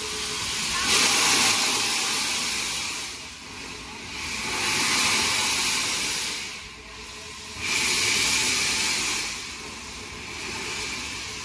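Steam hissing from the steam locomotive 60103 Flying Scotsman, rising and falling in four long surges about three seconds apart, over a low steady rumble.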